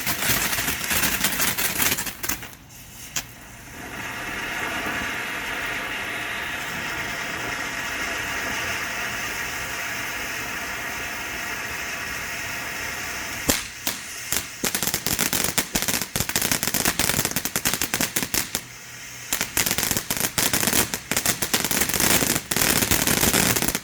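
Consumer firework fountain burning: dense, rapid crackling at first, a steady hiss of spray from about four seconds in, then dense crackling again from about thirteen seconds in, stopping suddenly at the end.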